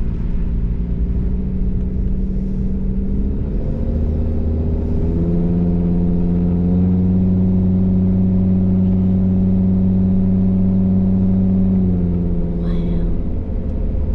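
Car engine and road rumble heard from inside the moving car. The engine note rises in two steps about four and five seconds in as the car speeds up, holds steady, then drops away near the end as it eases off.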